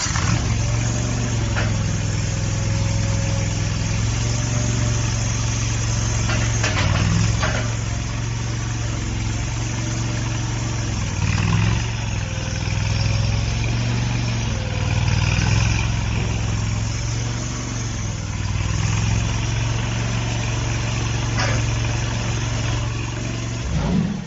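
Small diesel engine of a compact mini skid steer loader running steadily, with a few sharp clicks or knocks scattered through it.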